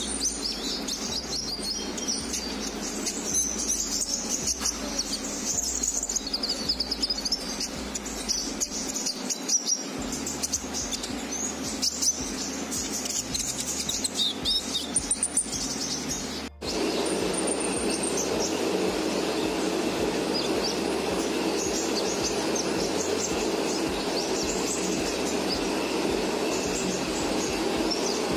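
Olive-backed sunbirds (konin) chirping in rapid, high twittering calls. About two-thirds of the way through there is an abrupt cut, after which a steady background rumble runs under the continuing chirps.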